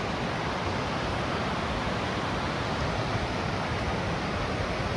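White-water rapids of the Spokane River rushing with a steady, even roar.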